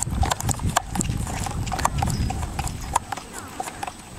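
Irish cob (tinker) trotting in harness, its hoofbeats mixed with the clatter of the marathon carriage and harness: a quick, irregular run of sharp clicks that grows fainter near the end.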